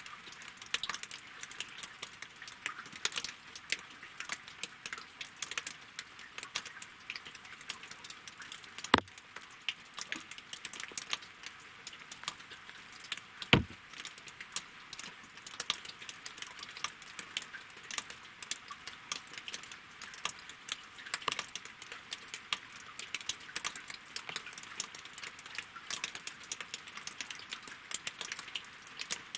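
Winter rain falling on lake water and logs: a steady, dense patter of small drips, with two louder, sharper drops partway through.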